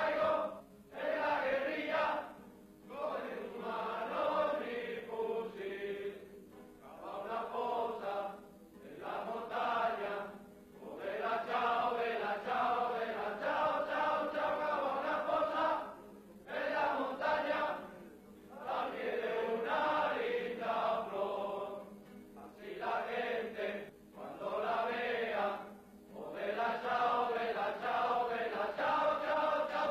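A group of male soldiers singing a military song together in unison, in phrases of one to three seconds with short breaks between them.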